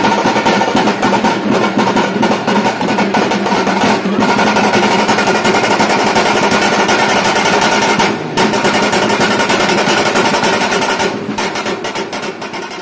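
Frame drums beaten with sticks in a fast, dense, rolling rhythm, loud throughout, with a brief break about eight seconds in; the sound fades away near the end.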